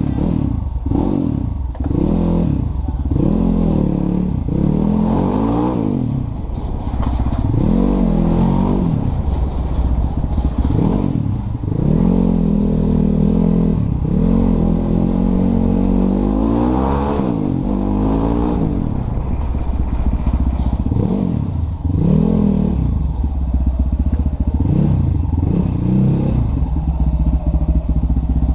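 KTM RC motorcycle's single-cylinder engine revved repeatedly through an aftermarket Cross Fire exhaust. The revs rise and fall back toward idle more than a dozen times, each blip lasting about one to two seconds.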